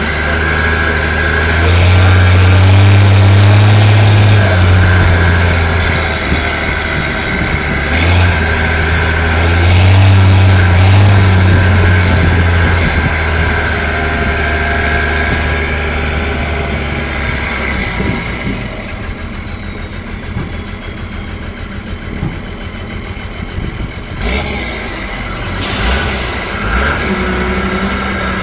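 Army truck engine running while the truck drives, pulling hard and loud twice in the first half, then settling to a lower, quieter run with a whine that falls in pitch. A short hiss sounds near the end.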